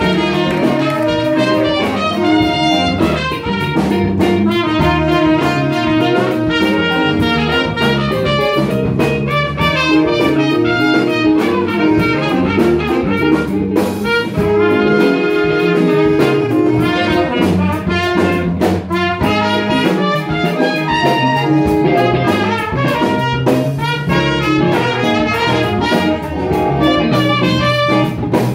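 Student jazz big band playing live, with saxophones and brass to the fore and frequent sharp accents.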